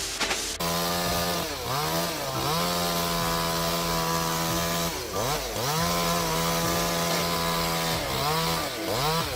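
Chainsaw running at high revs, its engine note held steady and then dipping and climbing back several times as the throttle is eased off and reopened.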